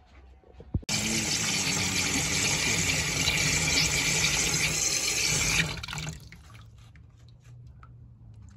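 Kitchen tap running full into a stainless steel sink, the stream splashing over vegetables being rinsed. It starts suddenly about a second in and stops nearly five seconds later, leaving only faint low sounds.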